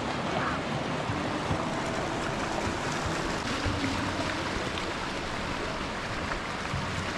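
Steady rush of flowing river water, an even wash of noise with no breaks.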